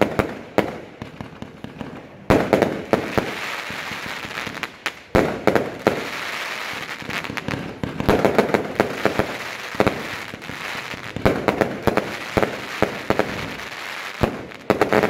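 Aerial fireworks going off: an irregular run of sharp bangs and pops from bursting shells, in clusters, with a steady hiss between the louder bursts.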